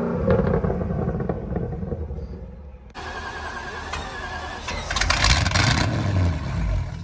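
A car engine drops back from a rev and its pitch falls, fading over the first few seconds. After a cut, an engine runs steadily under outdoor noise, getting louder about two-thirds of the way in.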